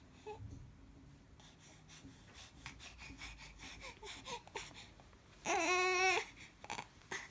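Baby babbling with small soft vocal sounds, then one louder wavering call, cry-like and lasting well under a second, about five and a half seconds in.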